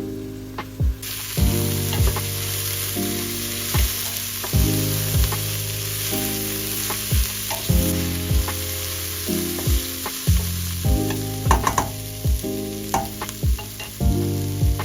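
Food sizzling as it fries, starting about a second in, with a few sharp clicks near the end from stirring. Soft lo-fi music with a steady beat plays underneath.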